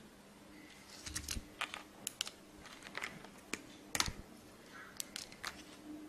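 Scattered light clicks and taps of a plastic phone shell and screen panel being handled, the loudest about four seconds in.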